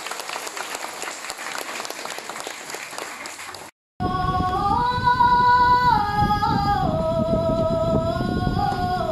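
Audience applauding for a few seconds, then after a sudden break a woman singing long held notes that step up and down in pitch.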